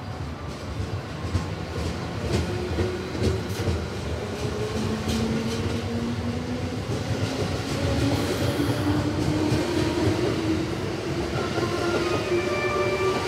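Electric commuter train pulling out of the station and speeding up: its traction motors whine in tones that climb steadily in pitch from about five seconds in, over a growing rumble and clicks of the wheels on the rails.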